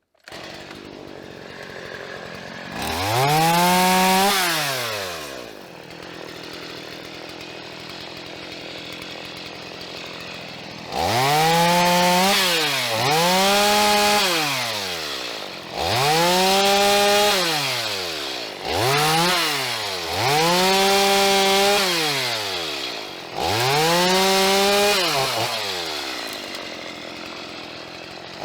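Two-stroke chainsaw idling, then revved up to full speed seven times. Each rev is held for a second or two before it falls back toward idle, and from about eleven seconds in the revs come in quick succession.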